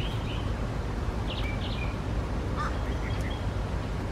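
Birds calling in short chirps, a few brief bursts, over a steady low rumble.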